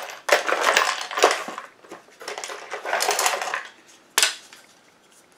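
Crinkling and rustling of packaging as parts are taken out of an antenna kit box, in two long stretches, then one sharp clack about four seconds in.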